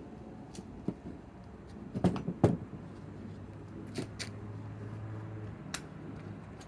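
Scattered knocks and clicks of tools and hardware being handled, the loudest a pair of knocks about two seconds in; no power tool runs.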